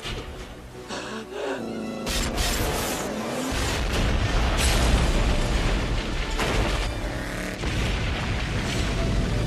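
Film music, then a big explosion about two seconds in that grows into a long, heavy low rumble as an ice building blows apart, with the music carrying on over it.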